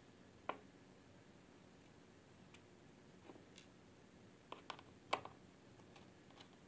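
Scattered light clicks and taps of a small screwdriver and metal screws against the casing of a 2.5-inch Western Digital Scorpio Blue laptop hard drive as its screws are taken out. There are about half a dozen clicks, the loudest about five seconds in.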